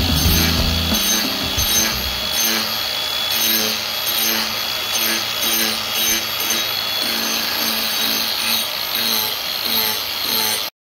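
Cordless angle grinder with a sanding disc running against a ziricote chair arm, shaping and sanding it, with a steady high whine. Background music with a regular beat plays along, and all sound cuts off abruptly near the end.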